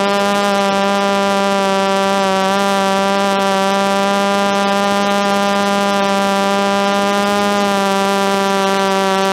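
DJI F330 quadcopter's four motors and propellers running with a steady buzzing hum, picked up close by the camera on the frame; the pitch dips slightly a couple of times as the throttle changes.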